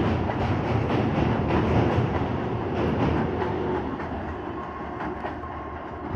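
Suburban electric local train (EMU) running past on the rails, its wheels clacking over the rail joints. The sound fades from about halfway through as the last coaches draw away.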